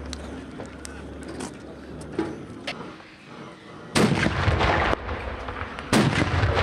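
Two carbide cannon shots from steel oil drums, about two seconds apart. Each is a loud bang as the acetylene inside is ignited and blows the lid off, followed by about a second of rumbling echo. Small clicks and knocks come before the first shot.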